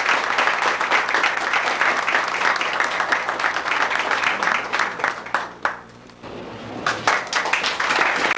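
Audience applauding, a dense round of clapping that dies away about five and a half seconds in, followed by a few scattered claps near the end.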